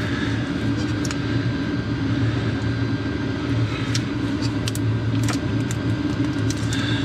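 Engine coolant draining from a disconnected hose of the L5P Duramax's fuel coolant pump, over a steady low mechanical hum, with a few light clicks.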